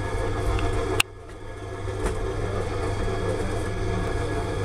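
An engine running steadily with a low hum, broken by a sharp click about a second in, after which the sound drops and then builds back up.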